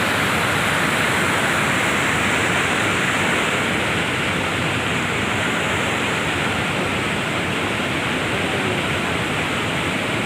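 Steady rush of a large waterfall, Dhuandhar Falls on the Narmada, water pouring and crashing without a break.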